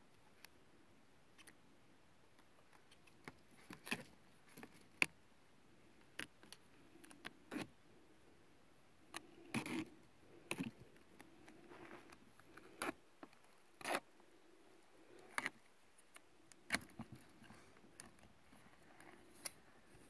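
Gorilla duct tape being pulled off the roll and wrapped around two black polyethylene hoses: scattered short rips and crinkles with small handling clicks.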